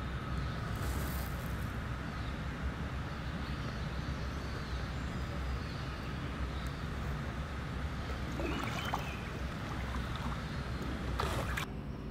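Steady low outdoor rumble with a faint high hum over it, a few light clicks, and a sharp knock near the end.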